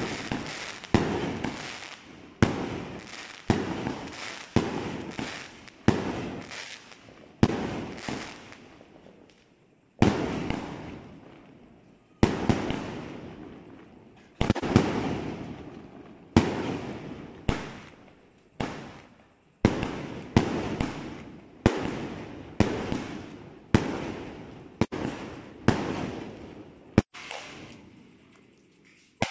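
A 1.5-inch, 88-shot fireworks cake firing shot after shot, about one a second with a few short pauses. Each sharp bang trails off over roughly a second.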